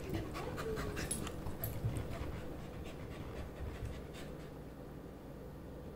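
A dog panting, the strokes growing fainter after the first couple of seconds.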